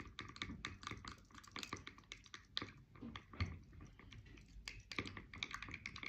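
Wooden stir stick clicking against the inside of a small beaker in quick, irregular ticks while metallic pearl powder concentrate is stirred into liquid.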